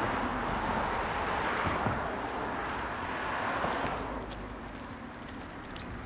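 A car driving past on the street, its tyre and road noise steady for the first few seconds and then fading away. A few light clicks follow near the end.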